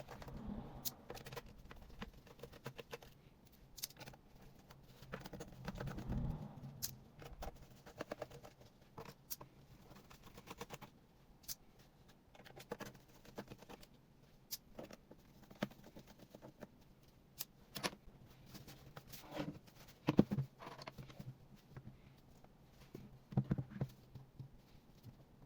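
Scattered small clicks, ticks and taps from hands and a tool handling a laptop's casing and screws, with a few louder knocks about a quarter of the way in and again near the end.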